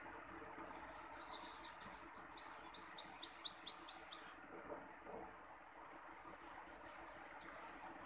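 Prothonotary warbler singing: a soft chattering run of notes, then a loud series of about eight quick rising notes that stops about halfway through. A few faint chips follow near the end.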